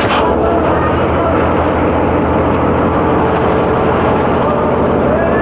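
Ship's engine machinery running with a loud, steady drone and an even low hum.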